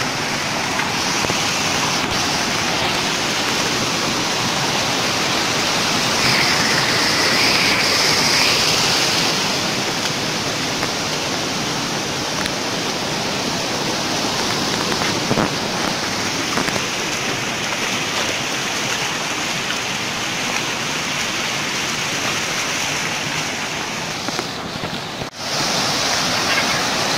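Water rushing over shallow limestone waterfall cascades, a steady, even rush of noise that briefly drops out near the end.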